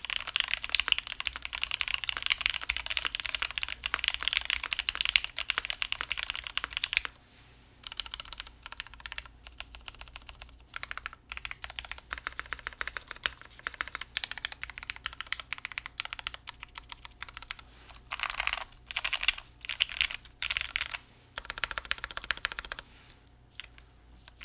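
Typing on a Monokei Kei 60% keyboard, gummy O-ring mounted on an aluminium full plate, with Gateron Ink V2 switches lubed with 205g0 and GMK keycaps. A fast, dense stream of keystrokes for about seven seconds, then slower, more spaced-out presses with a few short quick bursts near the end.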